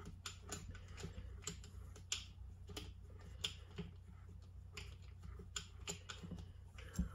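Faint, irregular light clicks of a hand tool turning the small retaining bolt at the bottom of a motorcycle fork leg, with a slightly louder knock near the end.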